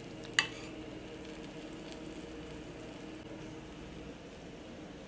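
A single sharp clink of a metal spoon against a bowl about half a second in, then a faint, steady kitchen hum with a light hiss under it.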